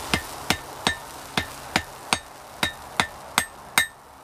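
Hand hammer striking a white-hot steel cable end on an anvil, about three blows a second, each with a short metallic ring. The blows forge-weld the fluxed cable strands together at welding heat, and they pause briefly near the end.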